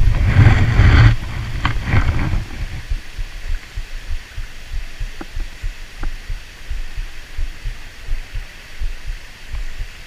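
Wind buffeting the microphone in an uneven, pulsing low rumble, over the rush of the river's flowing water, which is loudest in the first two seconds or so.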